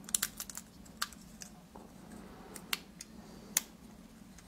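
Light clicks and taps of metal and plastic rifle trigger-group parts being handled and set down: a quick flurry of clicks near the start, then single clicks about a second apart.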